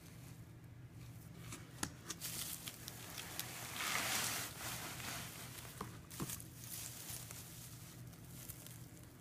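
A shipping package being opened by hand: tearing and crinkling of tape and packing material, with scattered small clicks and knocks and a louder rustle about four seconds in.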